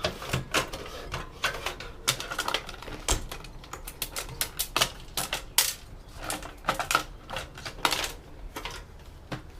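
Irregular clicks, taps and light clatter of small metal parts and hand tools being handled while dismantling an electronics chassis.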